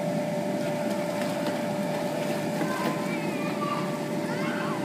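A steady machine drone with a constant whining tone, unchanging throughout; faint high wavering voices come in about halfway through.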